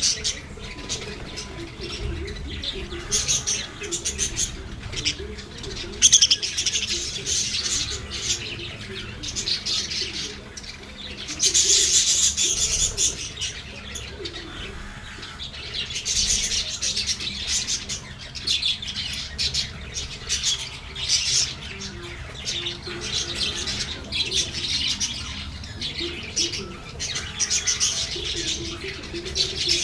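Lovebirds chirping and chattering in repeated high-pitched bursts, loudest about twelve seconds in.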